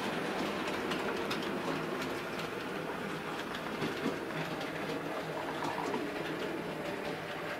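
Sn2½ model steam tank locomotive running slowly along the track, with faint irregular clicks over a steady background hum.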